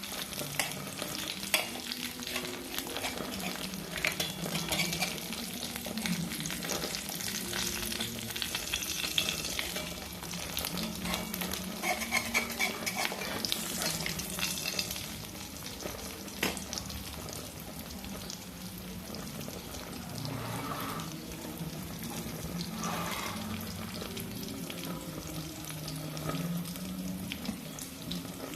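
Bánh xèo batter frying in a hot pan: a steady sizzle full of small crackles, over a low wavering hum.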